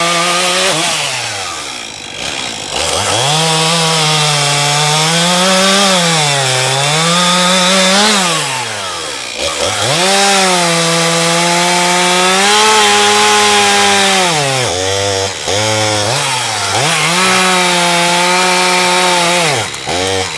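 Chainsaw engine revving up to high speed and dropping back to idle again and again, cutting up downed trees; the pitch sags in places as the chain bites into the wood.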